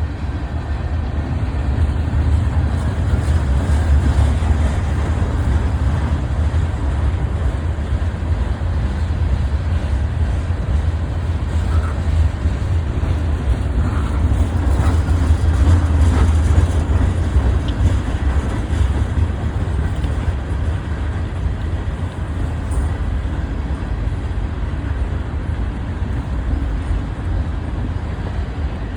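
Freight train rolling past: a steady, loud, low rumble of cars on the rails, with no horn.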